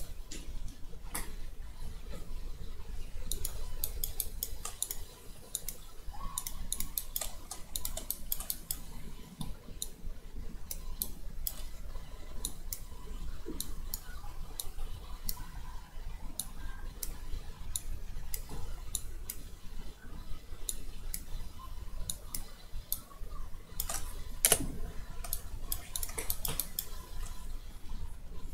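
Irregular clicks of a computer mouse, some in quick clusters, over a steady low background hum.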